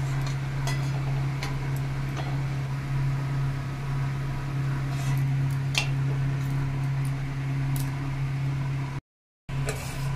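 Gujiyas deep-frying in hot oil in a kadhai: a steady hiss with scattered pops, over a steady low hum. The sound cuts out for a moment near the end.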